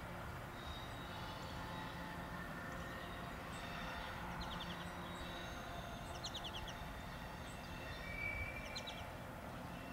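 Songbirds chirping in short rapid trills and a whistled note over steady outdoor background noise. The low hum of the receding passenger train fades out about halfway through.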